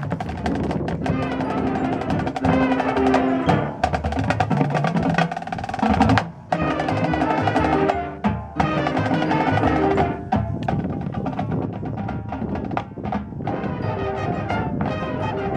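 High school marching band playing its field show: brass and woodwinds sustaining pitched notes over busy drumline and mallet percussion, with a short break in the sound about six seconds in.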